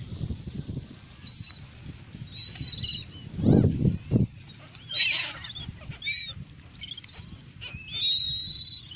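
A flock of gulls calling: many short, arched, high-pitched cries, overlapping and repeated. There is a loud low burst of sound about three and a half seconds in and a shorter one just after.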